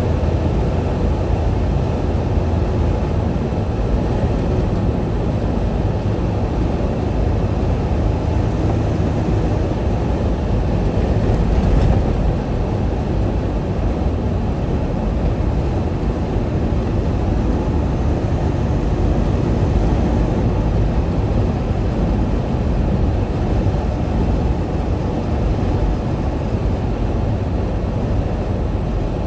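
Semi-truck running with a steady, even low rumble and no distinct knocks or changes.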